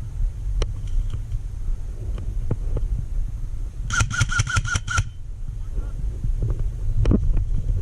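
Wind buffeting the microphone, with scattered handling knocks. Just past the middle comes a quick run of about seven high, pitched chirps lasting about a second.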